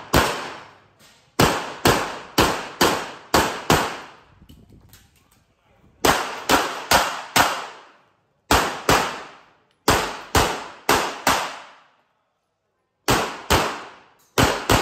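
Handgun shots fired in quick strings, mostly pairs and fours about half a second apart, with short pauses between strings as the shooter moves through an IPSC stage. Each shot rings out with a reverberating tail.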